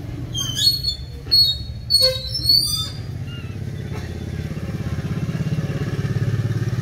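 Young mongooses squealing in short high-pitched bursts, about four calls in the first three seconds as they tussle. A steady low engine drone runs underneath throughout.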